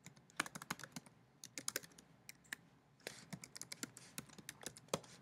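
Computer keyboard being typed on: quick, irregular key clicks in two runs with a short pause about halfway through.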